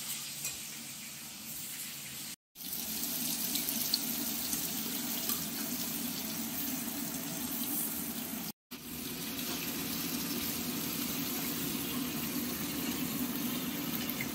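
Vegetables frying in hot oil in a pan: a steady sizzle with a few small pops, dropping out abruptly for a moment twice.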